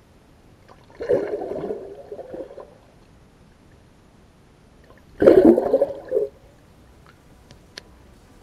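Water gurgling and sloshing as heard by an underwater camera, in two bursts: one about a second in, and a shorter, louder one about five seconds in.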